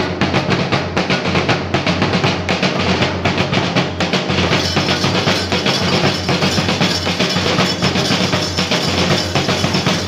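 Loud, fast drumming with music, starting abruptly; a brighter, hissing high layer joins a little before halfway.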